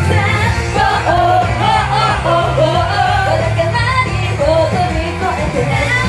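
Idol pop song performed live: voices singing a melody over a loud backing track with sustained bass notes.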